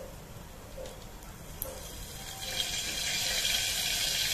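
Cumin seeds sizzling in hot oil in a pressure cooker, the hiss swelling louder about two and a half seconds in as the oil bubbles harder.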